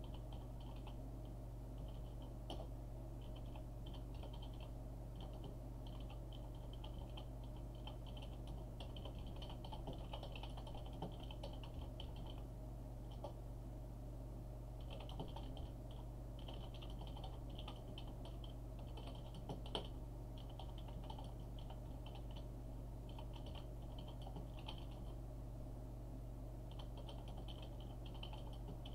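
Typing on a computer keyboard: runs of quick key clicks broken by short pauses, with a longer pause of about two seconds near the middle. A steady low hum lies underneath.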